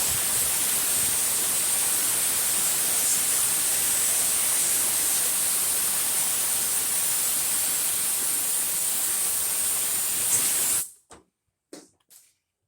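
Steamer hissing steadily as steam is blown into a refrigerator's clogged defrost drain to clear it. It cuts off abruptly near the end, leaving a few faint clicks.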